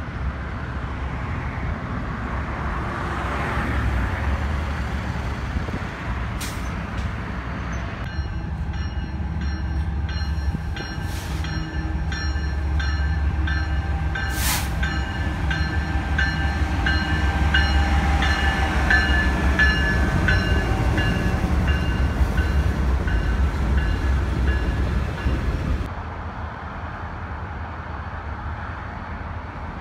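Diesel freight locomotives rumbling as they move through a rail yard. Then a long freight train pulls in, and its engine rumble grows loudest about two-thirds of the way in while a bell rings with a steady, repeating clang. Near the end there is a quieter rumble from a pair of locomotives.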